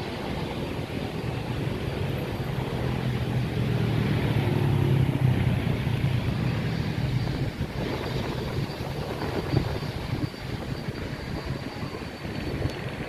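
Airliner taking off, its engine noise swelling to a peak about five seconds in and then fading, with strong wind buffeting the microphone.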